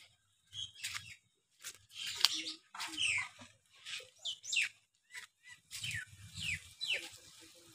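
Small birds chirping, many short sharply falling calls one after another, with low dull bumps underneath.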